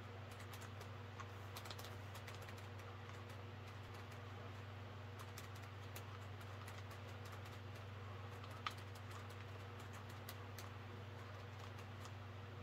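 Faint, irregular clicking and ticking from a wolf mask's snarl mechanism, worked by a bike-brake-lever hand control and a floating jaw, with one sharper click about nine seconds in, over a steady low hum.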